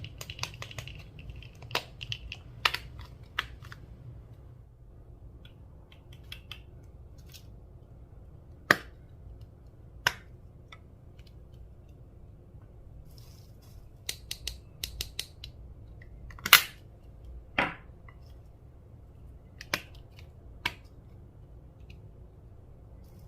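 Irregular sticky clicks and pops of slime being squeezed and stretched by hand, with a few louder pops among them.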